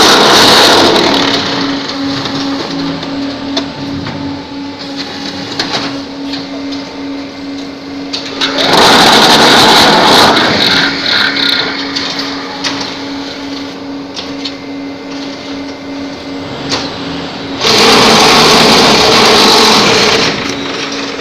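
Multi-block concrete paving block machine running: a steady motor hum under loud, noisy bursts of two to three seconds, one ending about a second in and others about 9 and 18 seconds in, as the machine works through its block-pressing cycles.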